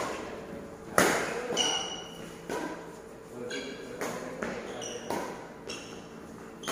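Badminton rally in a large hall: rackets striking the shuttlecock about every second or so, the loudest hit about a second in. Short high squeaks of shoes on the court floor come between the hits.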